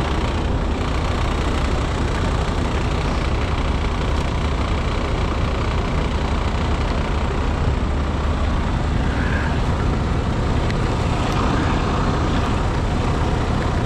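Heavy truck diesel engine running steadily at idle, a constant deep drone with no revving.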